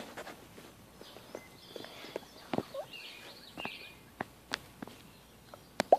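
Quiet outdoor ambience with faint, distant bird chirps and a few scattered soft clicks.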